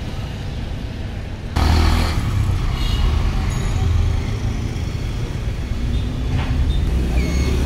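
Road traffic noise: a steady low rumble of passing vehicles, jumping louder about a second and a half in.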